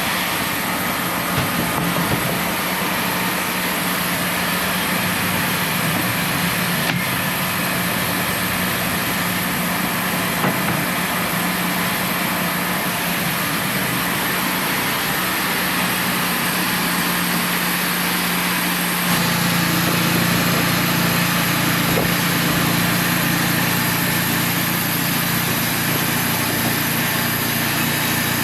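Portable band sawmill's engine running steadily with a constant hum. About two-thirds of the way through, the sound abruptly gets a little louder and deeper.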